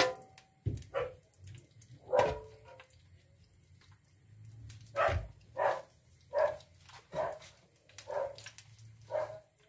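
A dog barking in a run of short barks, spaced about half a second to a second apart.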